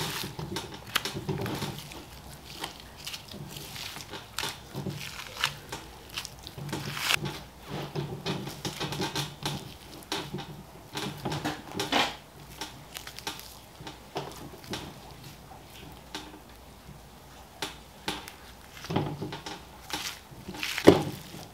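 Curved boning knife cutting along the seam of a boneless beef chuck as the meat is pulled back, with soft cutting and handling sounds and scattered light clicks and taps on the plastic cutting board. A sharper knock comes near the end.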